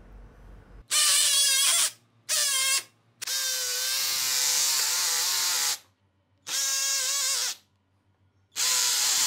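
Surgical oscillating bone saw cutting the tibia of a plastic saw-bone knee through a cutting block during the tibial resection. It gives a high whine in five runs of about half a second to two and a half seconds each, stopping briefly between them.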